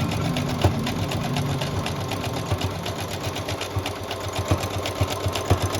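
A small machine running with a rapid, even mechanical clatter over a low hum.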